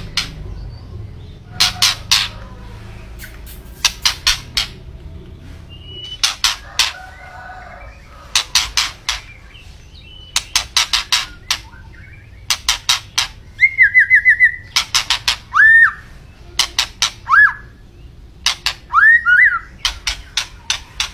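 White-rumped shama singing: groups of sharp, rapid clicking notes every second or two, and from about the middle on, clear whistled notes that swoop up and down between the rapid bursts.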